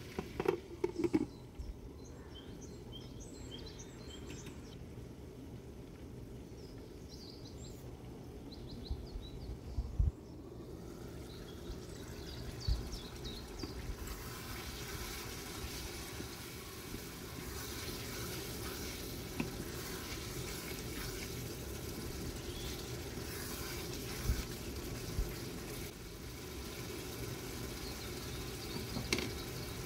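Zucchini curry cooking in a frying pan: a steady sizzle and bubbling over a low hum. A glass lid clatters onto the pan about a second in, and there are a few soft knocks later.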